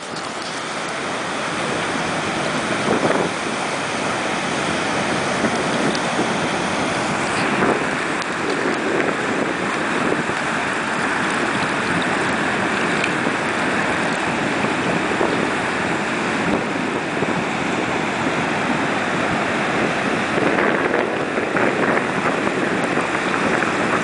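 Ocean surf washing over rocky tide pools at low tide: a steady rush of water.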